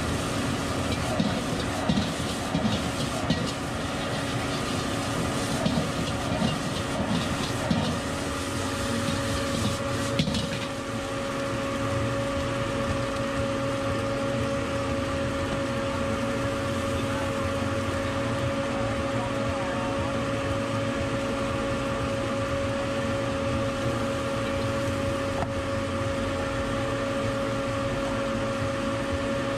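Metal spatula scraping and clanking against a wok as fried rice is stir-fried, over a steady mechanical hum with a held tone. The scraping stops about ten seconds in, leaving only the hum.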